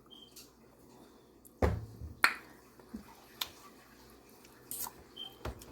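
Scattered light clicks and taps of eating at a table, about six over several seconds, with two brief high pings.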